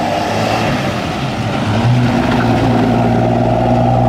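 A vintage car engine running with a steady drone. Its note shifts just under two seconds in and then holds steady.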